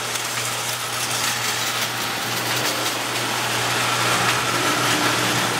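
Marx toy electric train running around its track: a steady electric motor hum under a continuous rattling clatter of wheels and tinplate.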